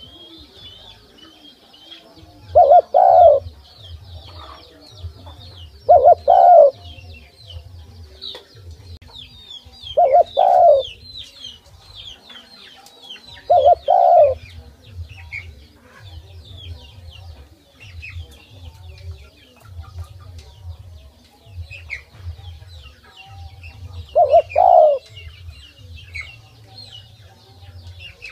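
Spotted dove cooing: five short, two-note coos a few seconds apart, with a longer pause before the last one.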